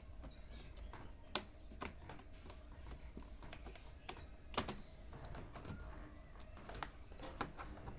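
Scattered sharp plastic clicks and taps from handling an HP laptop's keyboard during its removal, a few at irregular intervals, the loudest about a second and a half in and again past four and a half seconds.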